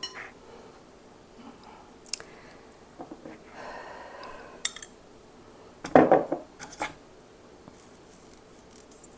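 Knife and plastic lids clicking and clattering on a cutting board while grapes are halved between the lids. There are a few sharp clicks, a brief rustle about three and a half seconds in, and the loudest clatter about six seconds in.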